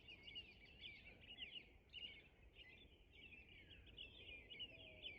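Faint chorus of small songbirds, many short chirps and sliding notes overlapping without a break.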